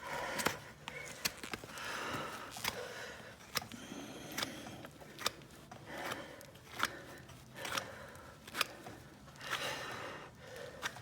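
Hoof knife paring down horn on a horse's hoof: a run of short, sharp cutting strokes about once a second, each a quick snick with a brief scrape.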